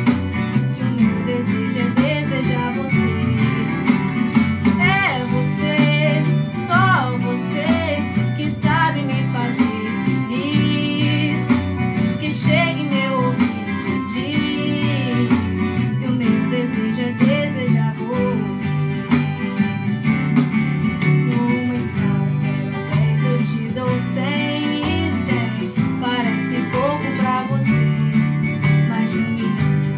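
A woman singing a slow romantic song over acoustic guitar accompaniment with a steady bass line.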